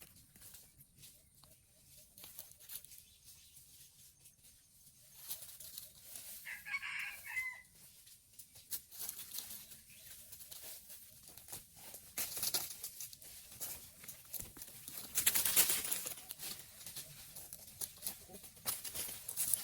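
A rooster crowing once, about seven seconds in, among scattered rustling noises. The loudest of these is a noisy burst about fifteen seconds in.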